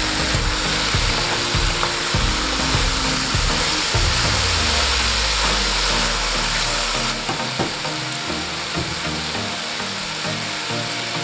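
Chicken pieces and artichoke hearts sizzling in an aluminium pot over high heat while a wooden spoon stirs and scrapes through them; the sizzle eases a little about seven seconds in, when the stirring stops.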